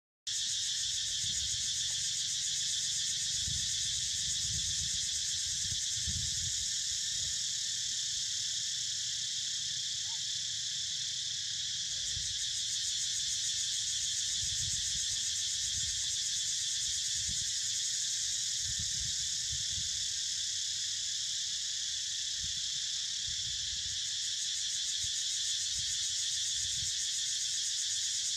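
Steady, shrill chorus of insects with a fast pulsing buzz, unbroken throughout, over irregular low rumbles.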